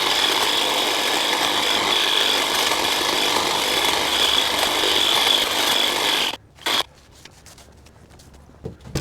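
A handheld power tool runs steadily for about six seconds, stops abruptly, then runs again in one short burst.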